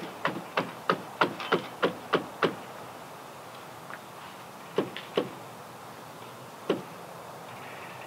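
A quick run of sharp metal clicks, about four or five a second for the first two and a half seconds, then three single knocks: hand adjustment of the headblock hardware on a vintage sawmill carriage.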